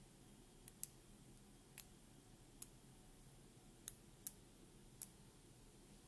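Small neodymium magnetic balls clicking against each other as sections of a magnetic-ball sculpture are pulled off and snapped back on: about seven short, sharp clicks at irregular intervals, with near silence between.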